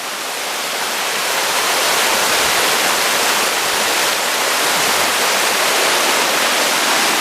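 Mountain stream water rushing and falling steeply over a drop, a dense steady rush that grows louder over the first two seconds and then holds.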